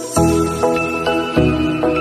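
Intro music: melody notes over a bass line that restrikes about every second and a quarter, with a brief swish at the very start.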